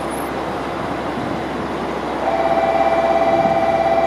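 A diesel railcar idling at a platform, with a steady engine rumble. About halfway through, a steady pulsing buzz starts and keeps going.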